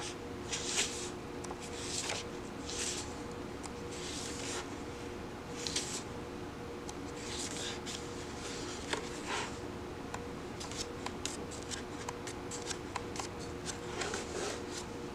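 Pages of a softcover paperback book being turned by hand, a papery swish with each turn, about one a second at first. From about ten seconds in, the pages are riffled, giving a quick run of ticks as they flip past.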